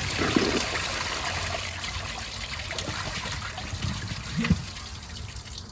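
Clovis Goods one-piece dual flush toilet finishing a full flush, the water rushing down and fading to a trickle, with a plastic grocery bag in the bowl as a clog test. A couple of small knocks come about four and a half seconds in.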